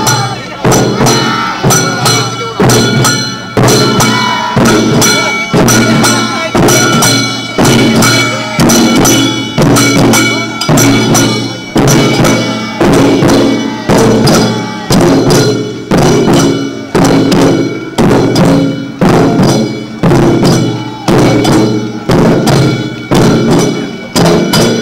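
Barrel-shaped taiko drums mounted on a festival float, beaten with sticks in a steady, driving beat a little faster than one stroke a second, with small brass hand cymbals ringing along.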